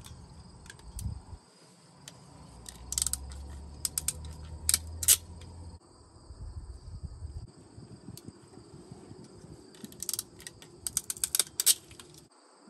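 Ratcheting wire crimper clicking in quick runs as butt connectors are crimped onto trailer brake wires, once about three to five seconds in and again near the end. Low wind rumble on the microphone in the first half.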